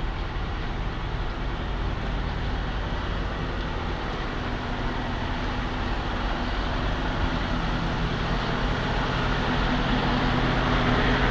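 Semi-truck tractor's diesel engine running steadily, growing gradually louder.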